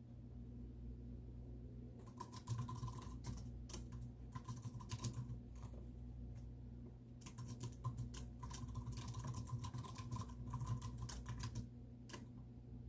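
Typing on a computer keyboard: two runs of quick key clicks, the first starting about two seconds in and the second about seven seconds in, with short pauses between. A steady low hum runs underneath.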